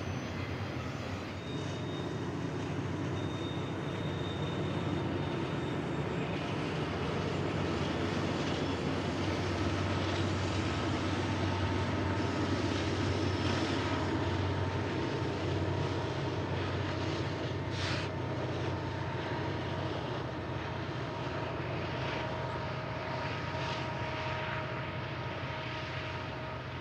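Long double-stack intermodal freight train rolling past: a steady rumble of steel wheels on rail under the drone of diesel locomotive engines, loudest around the middle. Near the end the BNSF diesel locomotives at the rear of the train come by.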